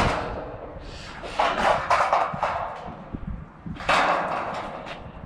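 Rustling and scraping handling noise from corrugated metal roofing panels and a roll of adhesive sealant tape being handled, in several short bursts: one at the start, a cluster about a second and a half in, and another about four seconds in.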